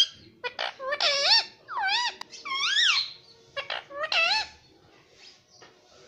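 Indian ringneck parakeet calling: a run of about five high, wavering calls that rise and fall in pitch, mixed with a few sharp clicks, stopping about four and a half seconds in.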